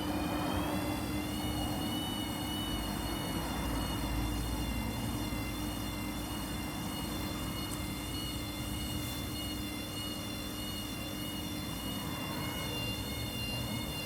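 Hoover H-Wash 300 washing machine on its spin cycle: a steady high motor whine that wavers slightly in pitch, over a lower hum and rumble.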